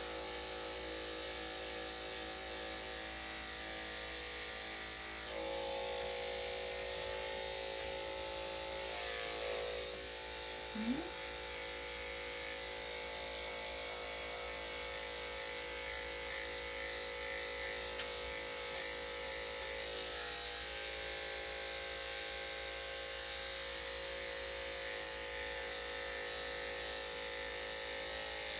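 Electric dog grooming clippers fitted with a #7 blade running steadily while clipping a dog's coat, the hum shifting slightly about five seconds in and again about twenty seconds in. One short rising sound about eleven seconds in.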